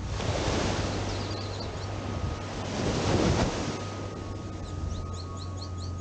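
Small waves breaking and washing up a sandy shore, with wind on the microphone; the wash swells to its loudest about halfway through. A bird gives a quick series of rising chirps about a second in and again near the end, over a steady low hum.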